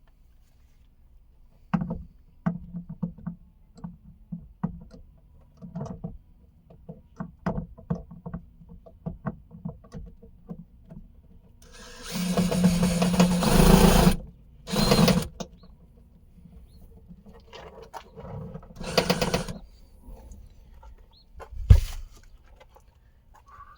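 A powered driver with a Phillips bit runs in short bursts, driving a screw into plastic trim, among light clicks and taps of the panel being handled. The longest run lasts about two seconds, about halfway through. Shorter runs follow about a second and about five seconds later, and there is a sharp knock near the end.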